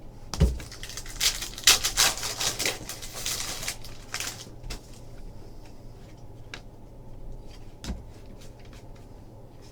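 Trading-card packs and cards being handled at a table: a dense burst of crinkling and clicking for about four seconds, opening with a knock, then scattered light clicks with one sharper tick near the end.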